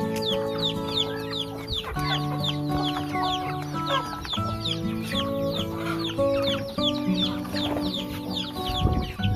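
A flock of chickens calling continuously with short, high, falling peeps, several a second, over background music with long held notes.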